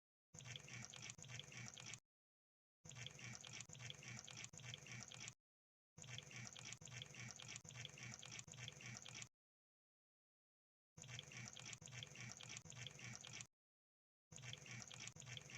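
Faint crab sound effect: wet, rapid clicking and crackling, like bubbling, played in five looped bursts of one to three seconds each with dead silence between them.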